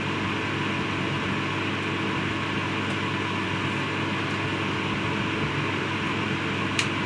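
Steady fan-like machine hum in a workshop, with a light click near the end as a bandsaw guide is adjusted by hand.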